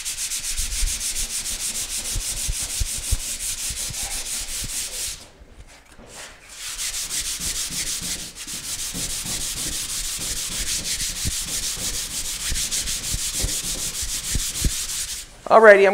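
Sandpaper rubbed by hand in rapid back-and-forth strokes over a primed car body panel, a steady rasping hiss. The strokes stop for about a second and a half around five seconds in, then start again.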